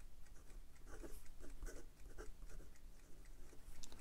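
Asvine P20 fountain pen's medium #6 steel nib writing on Clairefontaine 90 gsm paper: faint, quick scratches of pen strokes as letters are formed. The nib is smooth with just a hint of feedback.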